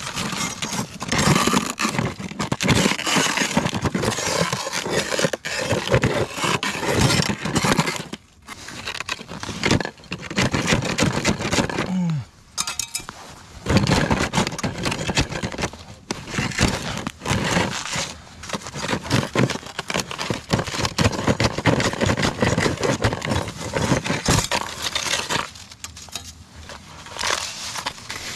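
Skim ice in a frozen-over ice-fishing hole being broken up and scraped out: a steady run of crunching, crackling and scraping, with a couple of short pauses.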